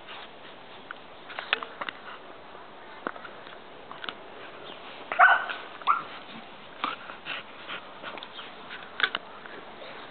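A puppy gives two short yips about halfway through, the first the loudest sound here, amid scattered short rustles and patter of puppies playing in grass.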